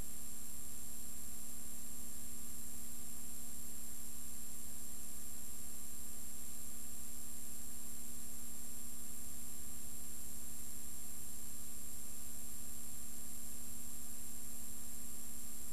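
Steady electrical hum with a faint high whine and even hiss, unchanging throughout: the background noise of a silent film's transfer, with no other sound.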